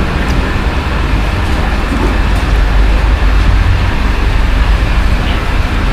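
Steady, loud low rumble with a hiss above it, with no clear events. It is continuous ambient background noise.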